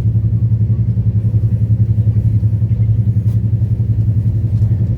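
Express passenger train running at speed: a loud, steady low rumble of the coach on the rails.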